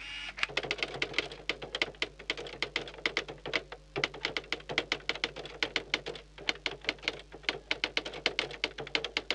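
Typewriter sound effect: rapid mechanical typewriter key strikes, several a second, in runs broken by a couple of short pauses.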